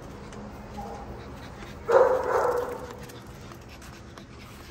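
A dog barks once, loudly, about two seconds in, the sound trailing off briefly.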